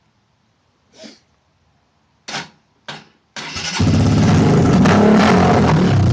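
Dirt bike's Honda engine being started: a faint click, two short bursts, then the engine catches about three and a half seconds in and runs loudly and steadily through an unmuffled straight-pipe exhaust.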